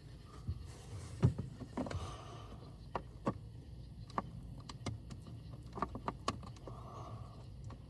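Scattered clicks and knocks of hand tools and small parts being handled while removing a blower motor resistor, over a low steady hum.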